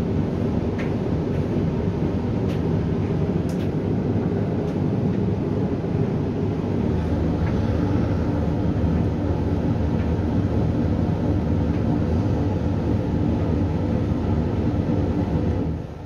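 Hoover tumble dryer running at the end of its cycle: a steady drum-and-motor rumble with a few light clicks of items hitting the drum. It starts to run down just before the end.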